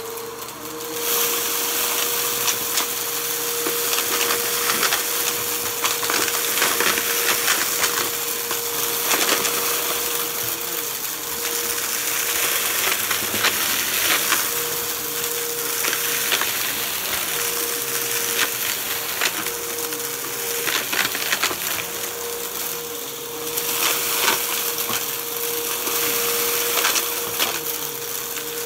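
Bissell upright vacuum cleaner running with a steady motor whine, its brushroll sucking up confetti, paper bits and clumps of hair from carpet. Frequent crackling and ticking as the debris is pulled in.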